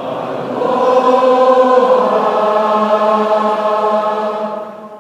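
A chorus singing one long held chord in close harmony. It swells just after the start and fades away near the end.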